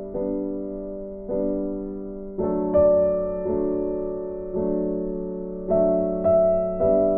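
Soft background piano music: slow chords struck about once a second, each fading before the next, with a few brighter, louder chords.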